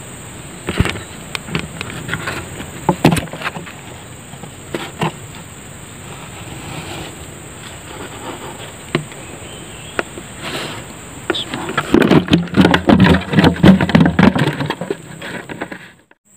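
Insects buzzing in a steady high drone, with scattered sharp clicks and rustles of a plastic bottle being handled; the handling noise turns louder and busier near the end, then everything cuts off.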